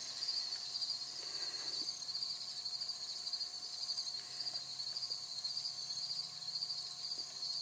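Steady chorus of chirping insects: a fast, even, high-pitched pulse that keeps on without a break.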